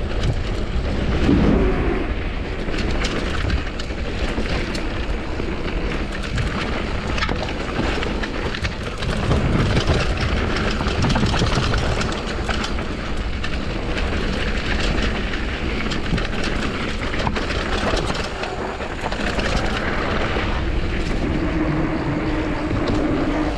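Commencal Supreme DH downhill mountain bike running over a rough trail: tyres on dirt and a constant clatter of knocks and rattles from the bike, with wind buffeting the microphone.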